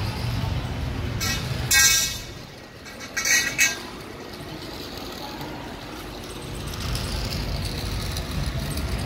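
Vehicle engines rumbling low and steady, with two short, loud hissing sounds about a second and a half and three and a half seconds in.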